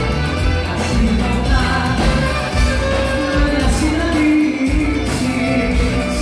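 A female singer with a band playing a song, over a steady, loud bass beat; she holds one sung note for about a second midway.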